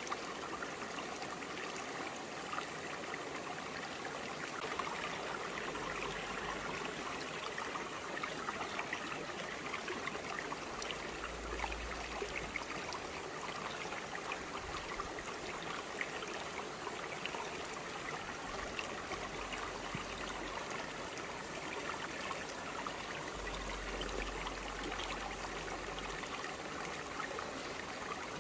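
Clear forest stream flowing over broad rocks: a steady, even babble and trickle of water.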